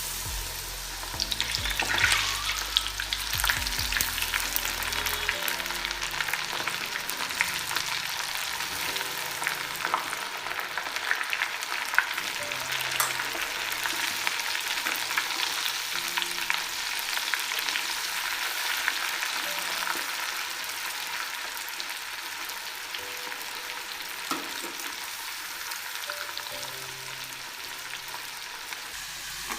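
Battered corn kernels deep-frying in hot oil: a dense crackling sizzle, busiest in the first few seconds and slowly easing as the kernels crisp.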